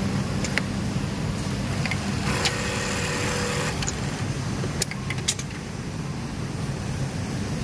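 Steady low hum of industrial sewing machines on a garment factory floor. About two seconds in, a machine runs in a burst of stitching for about a second and a half. A few sharp clicks come before and after it.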